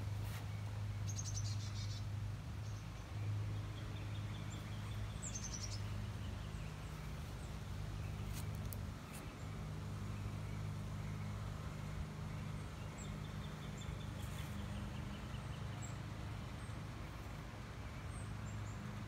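A steady low mechanical hum, with birds chirping and trilling now and then over it.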